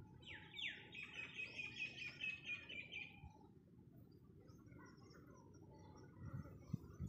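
A small bird singing a fast run of repeated, quickly falling high notes for about three seconds. A few soft low thuds near the end, the footsteps of someone walking on dry dirt.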